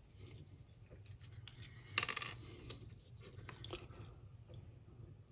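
Hands handling small plastic parts and a tube of super glue over a cutting mat: scattered faint clicks and rubs, with one sharp click about two seconds in.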